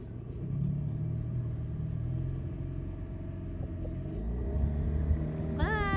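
A boat's outboard motor running, getting louder and deeper about four seconds in.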